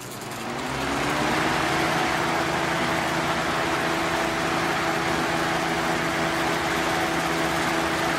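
Lakewood model 223 20-inch box fan running on high speed: the motor comes up to speed over the first second with a rising hum, then a steady rush of air from the blades with a constant motor hum.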